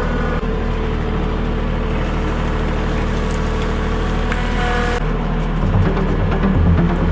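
An engine running steadily; the sound changes abruptly about five seconds in.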